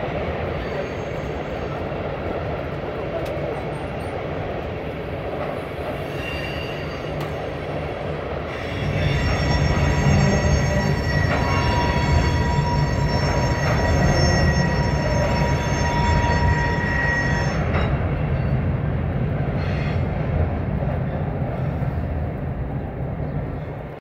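Covered hopper cars of a BNSF grain train rolling past with a steady rumble of wheels on rail. About nine seconds in, a steady high wheel squeal joins the rumble, lasts about nine seconds and stops. The rumble fades as the last car passes.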